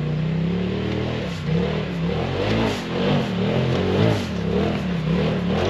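Polaris RZR side-by-side engine crawling up rock. It holds a steady note for about a second, then rises and falls in quick repeated throttle blips.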